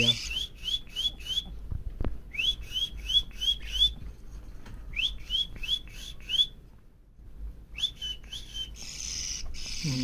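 Young budgerigar giving short rising chirps in quick runs of four or five, about four a second, with short pauses between runs. A steady hiss sets in near the end.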